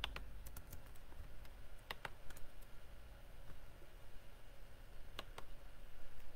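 Computer keyboard keys clicking as a word is typed, in short groups over the first two and a half seconds, then two more clicks about five seconds in.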